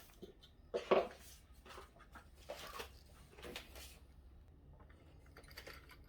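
Door lock handle parts being handled and pushed into the door: a few scattered light clicks and knocks, the loudest about a second in.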